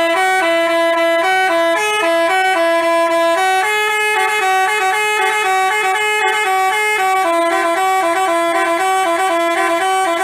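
Basuri 'telolet' musical horn playing a quick melody, its chords of horn tones stepping between notes several times a second without a break.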